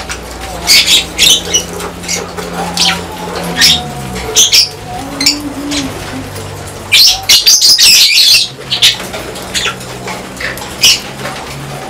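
Lovebirds chirping: short, sharp, high calls in quick runs, busiest about seven seconds in, with a steady low hum underneath.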